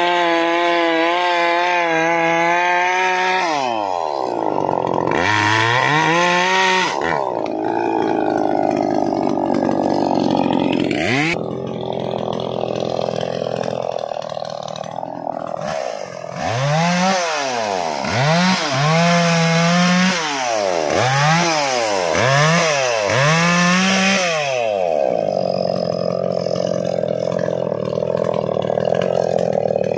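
A Maximus 57cc two-stroke chainsaw is held at full throttle, drops back to idle about three seconds in, then is revved in short bursts about half a dozen times. Near the end it runs steadily at high speed as it cuts into a teak log.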